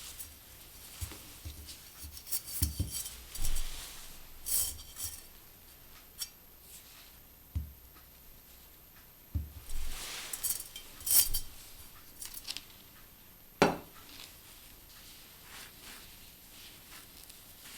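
Metal clinking and scraping at irregular intervals, as a homemade wire hanger is handled against a metal cooking pot. The sharpest clank comes about three-quarters of the way through.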